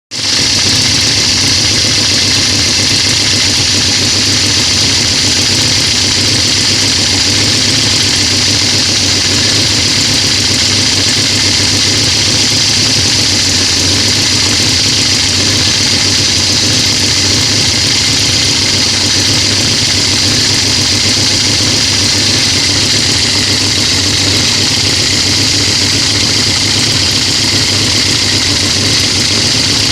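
Opel GT four-cylinder engine idling steadily, with a small recurring blip in its running that has not been traced to a vacuum leak at the intake manifold or carburettor.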